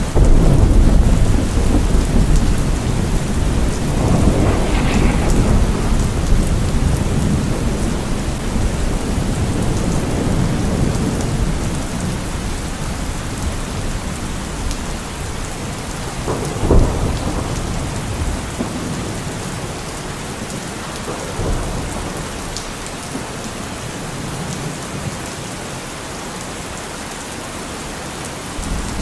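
Thunderstorm: steady rain with rolling thunder. A heavy rumble at the start slowly dies away, a sharper clap comes about two-thirds of the way in, and the storm quietens toward the end.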